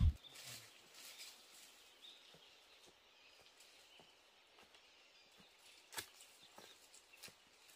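Quiet outdoor ambience with scattered light clicks and snaps, the sharpest about six seconds in, and faint high chirps.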